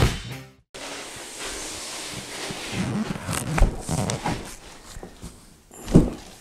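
A large cardboard box holding a set of exhaust headers is carried across a concrete garage floor, with footsteps and scuffing knocks. Near the end it is set down with one loud thump.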